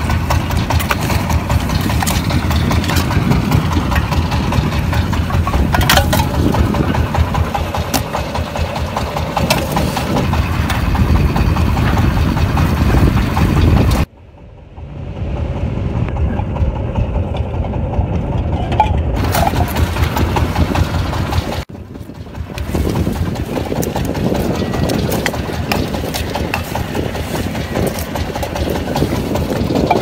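Fishing boat's engine idling steadily, with scattered clicks and knocks from the drink-can traps being handled close by. The engine sound drops away briefly twice, around the middle.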